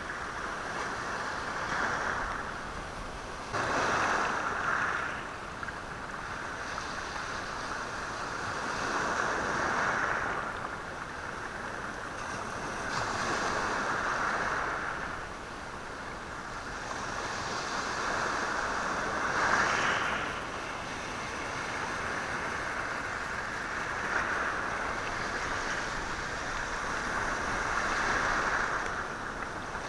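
Sea waves washing in over a rocky, stony shore, each wave swelling and ebbing every few seconds, with the hiss of water running through the stones.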